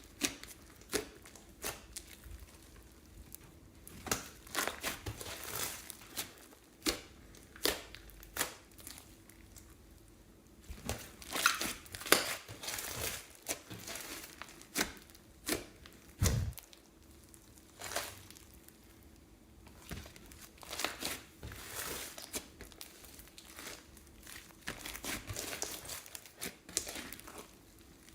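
Slime being squeezed from plastic piping bags and worked by hand: irregular crackly, crinkling bursts of plastic and sticky slime. One dull thump about sixteen seconds in.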